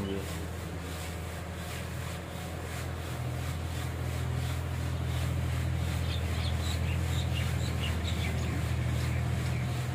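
Sesame seed pouring from a hand-worked wooden sieve onto a heap, an even hiss, over a steady low hum that grows louder about four seconds in. Birds chirp now and then.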